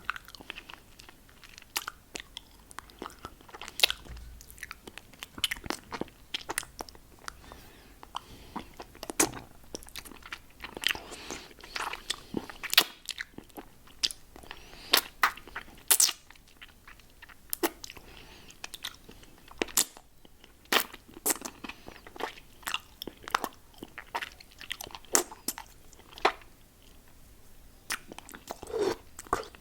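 Close-up mouth sounds of licking and sucking a hard-candy lollipop: irregular sharp clicks and smacks, several a second, with small pauses.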